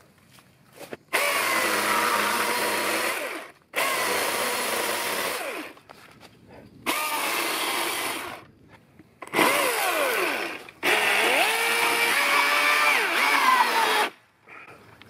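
Milwaukee M18 FUEL cordless electric chainsaw cutting through a log in five runs of about one and a half to three seconds, its motor starting and stopping abruptly with each trigger pull and falling quiet in between. Its whine dips in pitch under load during the later cuts.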